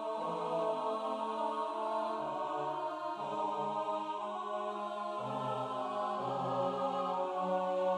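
Four-part a cappella choir music: voices holding chords that move from one to the next every half second to a second or so, with no words to be made out.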